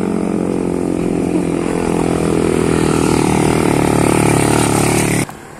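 Vehicle engines climbing a steep hill past the roadside: an SUV pulling away, then a motorcycle's engine passing close and growing louder. The sound cuts off suddenly near the end.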